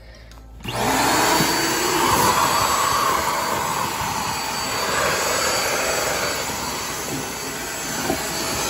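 Queen Made handheld vacuum cleaner switching on under a second in, then running steadily with a loud rushing suction as it picks up scraps of paper from a wooden floor.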